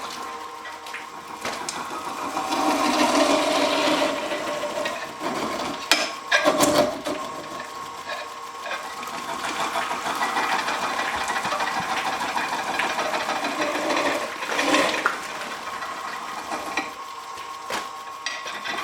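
Wood lathe running with a carbide tool cutting into a spinning pineapple: a steady motor whine under wet scraping of the fruit. A few sharp knocks come about six and fifteen seconds in.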